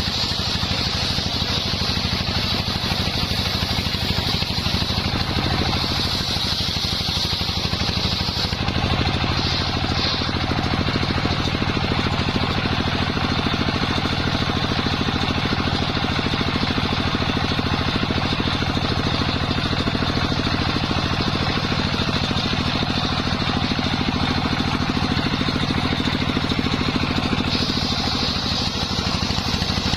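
Engine-driven circular saw rig running steadily while sawing timber into beams, with a steady low engine drone under a high whine from the blade. The high whine fades about a third of the way in and comes back strongly near the end.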